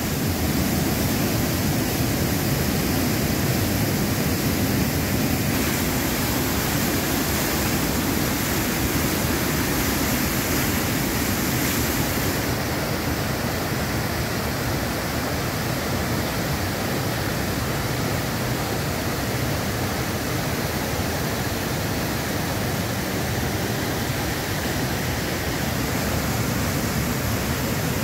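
Waterfall swollen by heavy rain, its white water running with a steady, full rushing noise; the highest hiss drops back a little about twelve seconds in.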